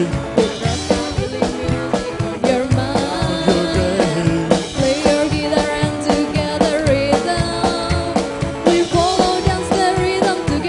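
Live rockabilly band playing: a woman singing over upright bass, drums and electric guitar.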